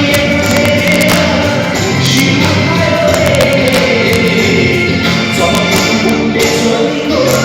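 Live band music with a sung melody line, played loud and steady over a Nepali pop song.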